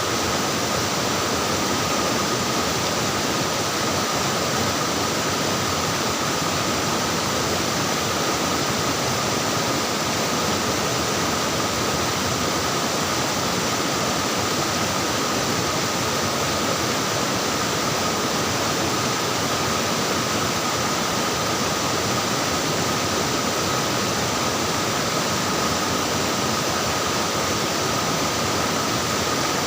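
Flowing, splashing water: a steady, even rush with no breaks.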